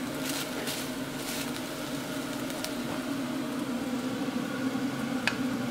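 Ground beef sizzling in an enamelled cast-iron pot, stirred with a silicone spatula that clicks lightly against the pot a few times. A steady mechanical hum runs underneath.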